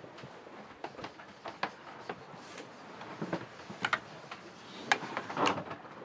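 Irregular light clicks and knocks in a small room, with a short burst of rustling about five and a half seconds in.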